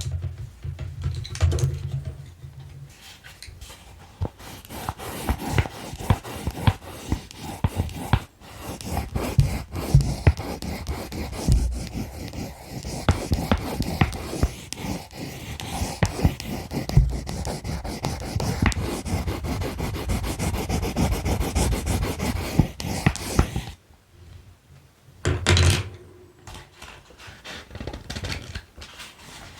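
Colored pencils tapped and scratched close to the microphone: scattered taps and clicks, then a long run of busy scratching and scraping, a brief pause, and a few more taps near the end.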